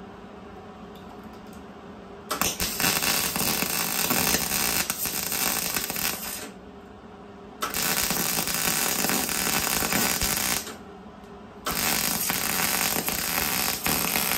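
Electric arc welding on galvanized steel Unistrut channel: three separate welds of about three to four seconds each, a steady sizzling crackle with short pauses between them.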